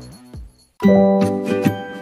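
Background music: one track fades out, there is a short near-silent gap about half a second in, then another piece starts with held pitched notes.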